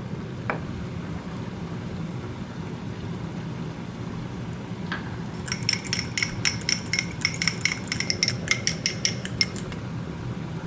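A metal spoon clinking quickly and repeatedly against metal cookware, about five strikes a second for roughly four seconds, starting about halfway in, over a steady low hum.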